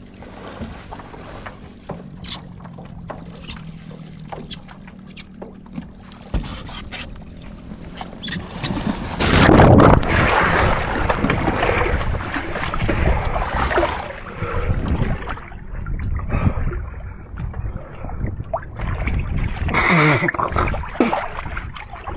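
Water lapping and small knocks on a small beach catamaran, then about nine seconds in a sudden loud splash as the boat is capsized and the sailor goes into the water, followed by ongoing splashing and sloshing.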